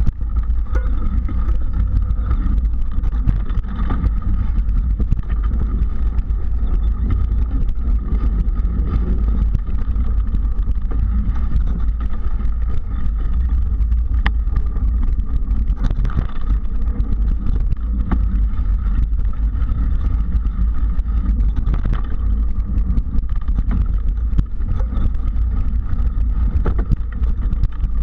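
Mountain bike riding over a dirt singletrack trail: a steady rumble of wind and road noise on the handlebar-mounted microphone, with scattered knocks and rattles from the bike going over bumps.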